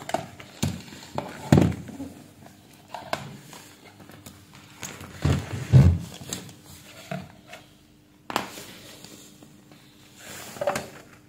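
Handling noises as a handheld digital multimeter and its test leads are moved about on a workbench: a string of separate knocks and clicks, the loudest cluster about halfway through.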